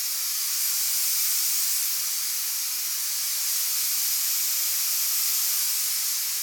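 Harbor Freight Black Widow HVLP spray gun blowing a steady high hiss of air, trigger fully pulled and fan wide open, drawing the compressor tank down on stored air.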